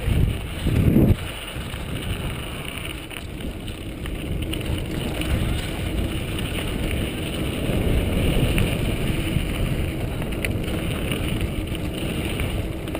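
Wind buffeting a helmet camera's microphone over the steady rumble of a mountain bike rolling along a dirt singletrack. There is a loud gust about a second in.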